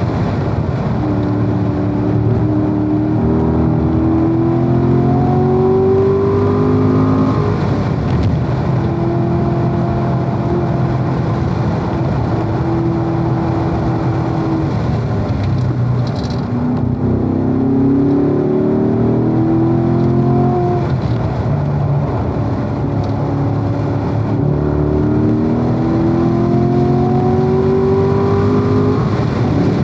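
Corvette V8 engine pulling hard on a racetrack lap. Its pitch climbs in three long rises, with a drop about halfway through and another just before the end as the driver lifts off.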